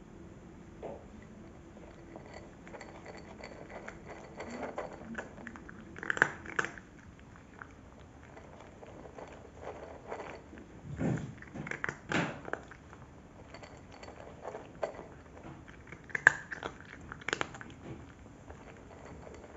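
Cat crunching dry kibble from a glass bowl: irregular crunches and clicks, coming in bunches, with the loudest around six, eleven to twelve, and sixteen to seventeen seconds in.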